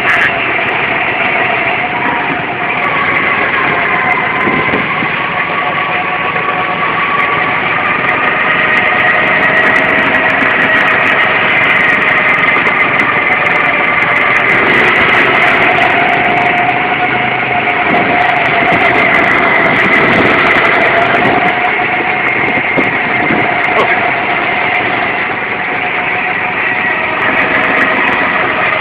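Go-kart engine running as the kart laps the track, heard from the driver's seat. Its pitch rises and falls gently with speed.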